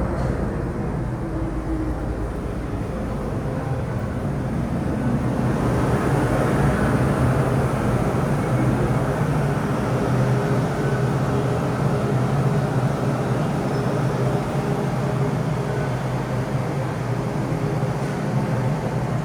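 Inside an MTR M-Train electric multiple unit in motion: a steady rumble of wheels on track with a low motor hum. The noise grows louder about six seconds in.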